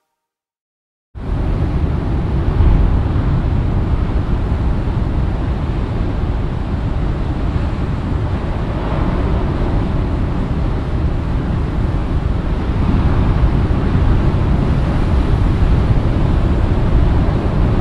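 Wind buffeting the microphone on the coast, a loud steady rumbling rush with surf beneath it, starting abruptly about a second in.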